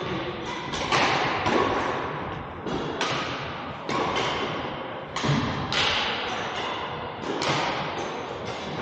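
Badminton rackets striking shuttlecocks in an echoing hall: sharp, irregular hits about one or two a second, with softer thuds between them.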